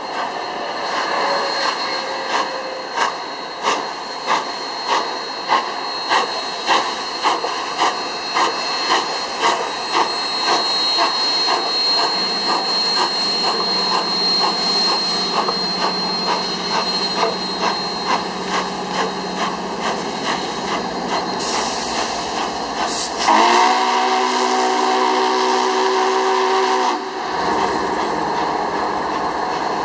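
Union Pacific No. 844, a 4-8-4 steam locomotive, working with steam hiss and exhaust chuffs about two a second that quicken and blend into the hiss. About three-quarters of the way through its chime whistle sounds a long blast of several tones at once, and it starts another near the end.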